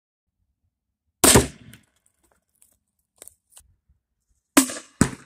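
40mm grenade launcher firing: a sharp shot about a second in, a couple of faint clicks, then two more sharp reports in quick succession near the end.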